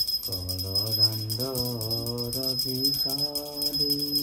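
Devotional song to Jagannath: a male voice sings a slow, wavering melody over steady, rhythmic jingling of small bells or cymbals.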